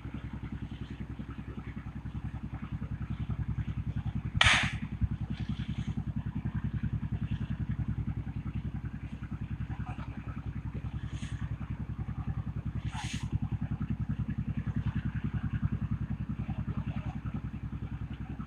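Engine running with a steady, even low throb. A brief loud burst of sharp noise cuts through about four and a half seconds in, with a few fainter ones later.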